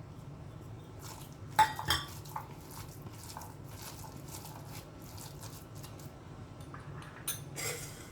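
Kitchen utensils clinking against a bowl or dish: a sharp clink about a second and a half in, a few more just after, then two more near the end, with light scattered ticks between.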